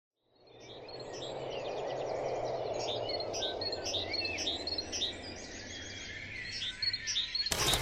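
Several birds chirping and trilling over a steady background rush that fades in at the start. A short burst of noise comes near the end.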